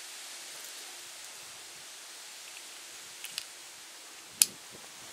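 Heritage Rough Rider single-action .22 revolver being handled at the cylinder: two light metallic clicks a little over three seconds in, then one sharp click about a second later.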